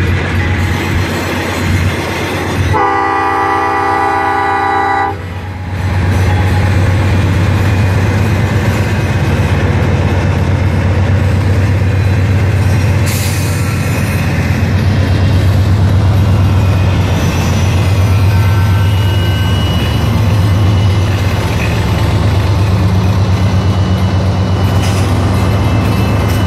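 CN freight train's diesel locomotive sounding its horn in one long blast of about two and a half seconds, a few seconds in. Right after it the locomotive's diesel engines drone loud and steady, over the rumble of the train on the rails.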